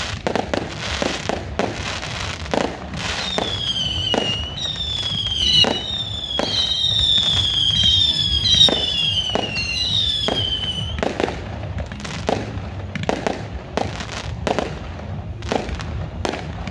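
Fireworks display: many sharp bangs and crackling reports throughout. In the middle there is a run of about seven high whistles, each falling in pitch, from whistling shells.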